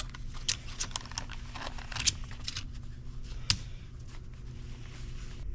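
Small clicks and taps of new hydraulic cylinder seals and rings being handled and worked onto a steel piston by hand, with one sharper tap about three and a half seconds in, over a steady low hum.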